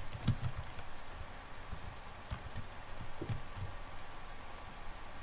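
Computer keyboard typing: a few scattered, light keystrokes spaced irregularly.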